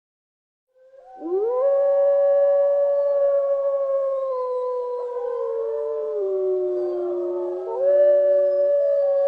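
Several canids howling together: long, held howls with overlapping voices that begin about a second in. One voice rises as it starts, one drops lower midway, and a new howl swells near the end.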